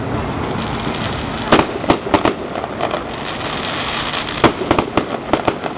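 Fireworks going off: sharp cracks and bangs in two quick runs, four about a second and a half in and a denser run of about eight near the end, over a steady hiss.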